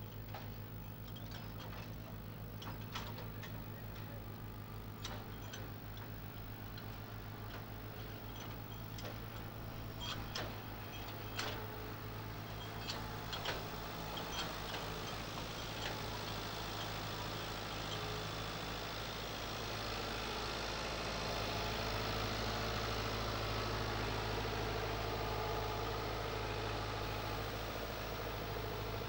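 Farm tractor's diesel engine running steadily, with scattered sharp clicks and clinks during the first half. From about two-thirds of the way through, the engine is louder as the tractor comes close.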